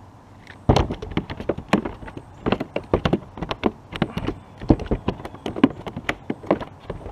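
A small bass flopping on the plastic deck of a sit-on-top kayak, its body slapping and knocking against the hull in an irregular rapid run of sharp thuds, several a second, starting about a second in.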